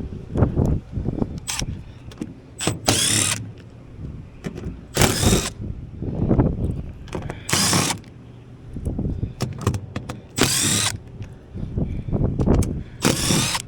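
Cordless power driver spinning out sheet-metal access-panel screws in five short runs a few seconds apart, with knocks and clunks of handling in between.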